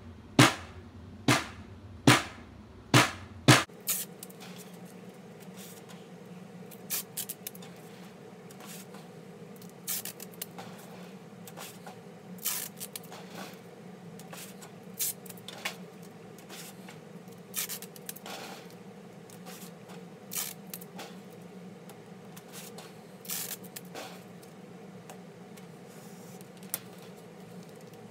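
A snare drum struck about five times, single hits a little under a second apart, as its head tension is raised toward a light snare buzz. Then quieter short, irregular bursts of tearing and scraping as masking tape is pulled off the roll and pressed onto the drum head to dampen it.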